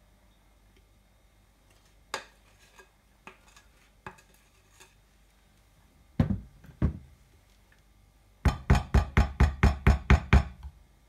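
A spatula scraping brownie batter out of a glass mixing bowl into a glass Pyrex baking dish. There are a few light clicks, two solid knocks a little past halfway, then a quick run of about a dozen knocks, about five a second, as the spatula spreads and taps the batter against the glass dish.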